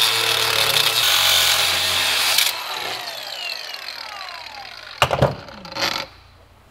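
Cordless angle grinder cutting through a steel coil spring, loud and steady for about two and a half seconds. It then breaks off and the disc spins down with a falling whine. Two short knocks follow near the end.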